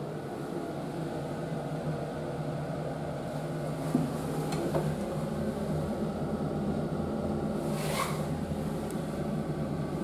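Steady low mechanical hum of restroom ventilation, with a short knock about four seconds in and a sharp click about eight seconds in.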